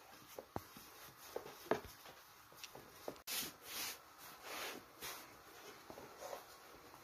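Thin egg-noodle dough being rolled out with a long wooden rolling pin on a floured wooden board: a few light knocks in the first half, then soft swishing rubs as hands and pin spread and smooth the sheet.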